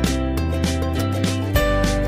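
Background music played by guitar, with steady notes changing every half second or so.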